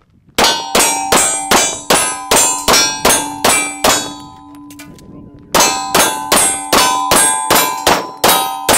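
Rapid pistol fire at steel targets: a quick string of shots, about three a second, each answered by the ringing clang of a hit steel plate. After a pause of about a second and a half, a second fast string of shots and clangs follows.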